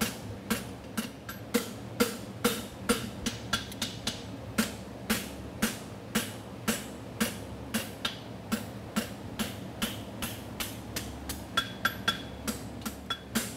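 Hand hammer striking a hot steel horseshoe bar on an anvil in a steady rhythm of about two to three blows a second as the farrier forges the shoe's bevel. A steady hum from a portable evaporative cooler fan runs underneath.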